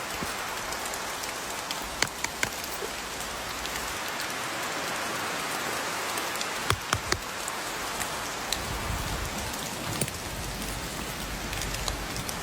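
Steady rain falling, with a few scattered sharp ticks: a small cluster about two seconds in and another about seven seconds in.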